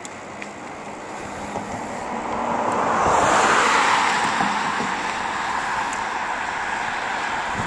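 A car passing on the road: tyre and engine noise swells to a peak about three seconds in, then eases off into a steady rush of road and wind noise.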